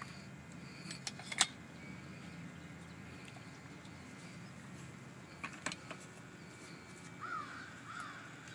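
A few sharp clicks from handling the well gear, the loudest about a second and a half in and two more near the middle. Near the end a bird calls twice, each call short and rising then falling.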